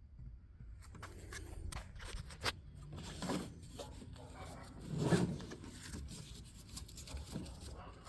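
Rustling and scraping with scattered light clicks and two soft thumps, the louder one about five seconds in, over a steady low rumble.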